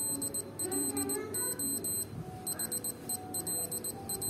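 Casio DW-8800 digital watch's beeper sounding Morse code. It gives a high-pitched electronic beep keyed in short and long pulses, dots and dashes, in groups separated by brief gaps.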